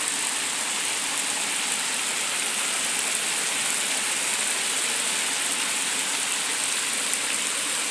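Torrential rain falling steadily, with floodwater rushing down the street: a dense, even hiss.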